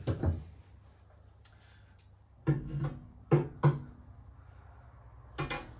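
Cast iron stove parts clanking: a support leg set down on the concrete floor at the start, then a cast iron grate knocking several times with a brief metallic ring as it is fed into the stove's steel firebox, about two and a half to four seconds in and again near the end.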